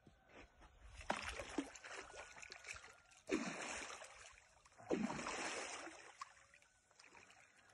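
Hooked fish splashing and thrashing at the water's surface as it is played in: three splashy bursts, each starting suddenly and lasting about a second or more.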